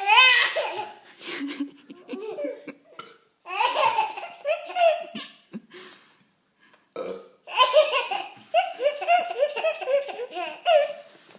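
Loud bouts of laughing broken up by burps, in a string of rapid bursts; the laughing pauses for a second or two in the middle, then comes back in a long run.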